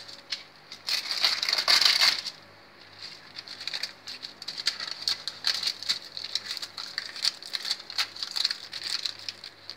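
Baking paper rustling and crinkling as hands fold it around pieces of sesame-honey bar. The rustling is loudest for about a second near the start, then goes on as a run of short crisp crackles.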